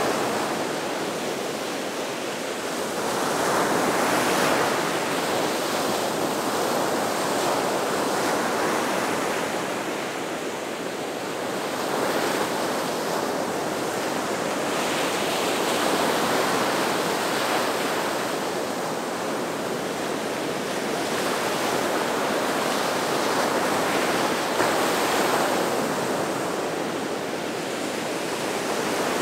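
Gulf of Mexico surf breaking and washing up on a sandy beach: a continuous rush that swells and eases in irregular surges a few seconds apart.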